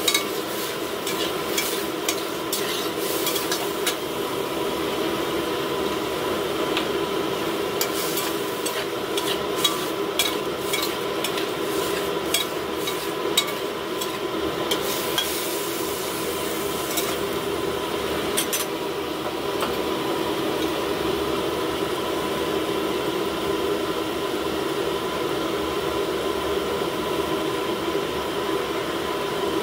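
Sea cucumber and garlic sizzling in a metal wok while a utensil stirs them, scraping and clicking against the pan; the clicks come thick for the first two-thirds, then thin out as the frying goes on. A steady hum runs underneath.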